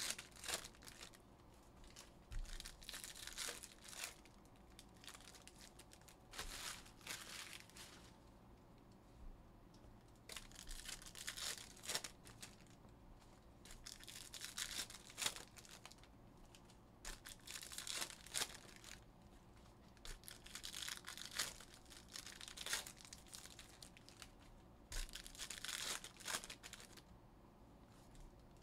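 Foil trading-card packs (2021 Panini Prizm Football) being torn open and their wrappers crinkled, in a series of short rustling bursts with brief pauses between them.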